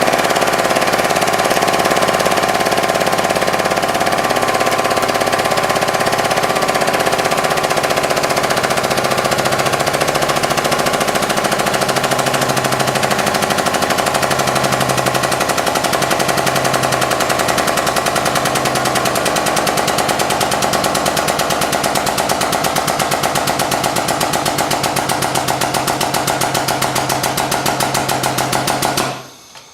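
Hydraulic press running as it crushes an LED headlight bulb: a steady engine-like drone with a fast, even pulsing that cuts off suddenly near the end.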